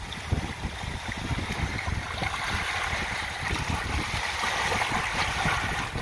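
Small sea waves washing in over a rocky, pebbly shore. The wash swells over a few seconds and breaks into froth near the end.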